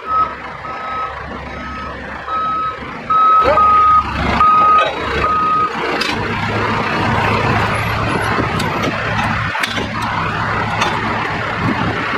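Heavy vehicle's reversing alarm beeping steadily at one pitch, stopping about six seconds in, over a heavy engine running amid industrial work noise, which carries on after the beeping ends.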